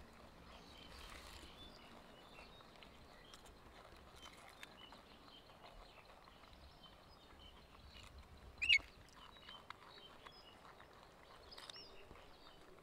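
Baby macaques chewing cucumber: faint crunching and small clicks over quiet outdoor background noise. One short, high, gliding chirp stands out about two-thirds of the way through.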